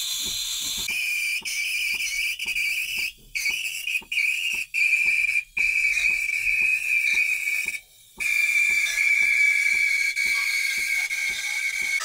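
Steam wand of a Sage/Breville espresso machine steaming milk hands-free in a jug: a loud steady whistling screech over hiss, its pitch slowly falling, broken by several brief gaps, with faint ticking underneath about three times a second. This is steaming with the tip sitting too deep, so little air gets into the milk, which leaves it too wet.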